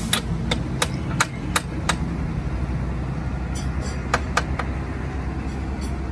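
Steady low engine hum from a motor running nearby. Over it come sharp, evenly spaced knocks, about three a second for the first two seconds, and two more about four seconds in.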